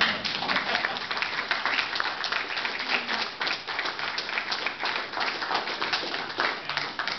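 Audience applauding: a roomful of people clapping their hands.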